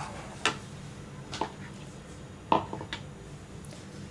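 Wooden spatula stirring a milk mixture in a steel saucepan, knocking lightly against the pan a few times over a steady low background hum.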